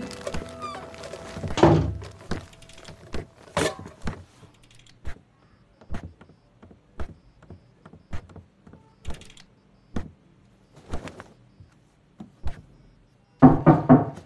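Slow, heavy footsteps of a person walking in leg braces on a wooden floor, knocking about once a second. Music fades out at the start, and there is a louder burst of sound near the end.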